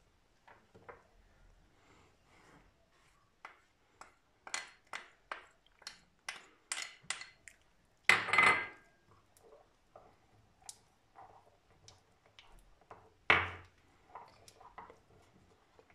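A spoon clinking against a bowl while ingredients are added and mixed: a run of light, quick clinks, then two louder knocks with a brief ring, the first about halfway through and the second a few seconds later.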